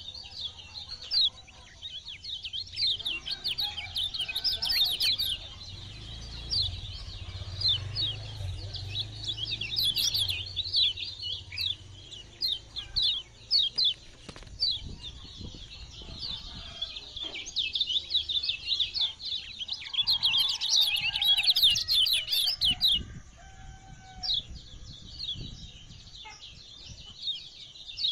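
Kecial kuning, a yellow white-eye, singing fast, short runs of high chirps, in dense bursts with brief pauses between them.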